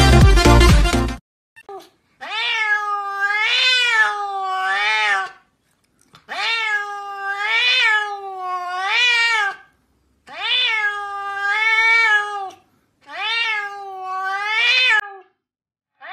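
A grey-and-white cat meowing loudly in four long, wavering calls, each two to three seconds, the pitch rising and falling several times within each, with short pauses between. A second of music plays at the start.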